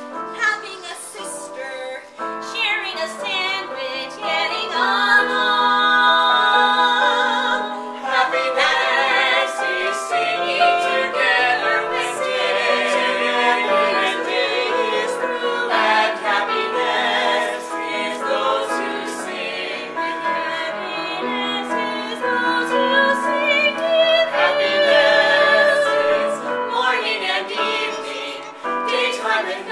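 Several voices, men and women, singing a musical-theatre song together in harmony, with vibrato on held notes.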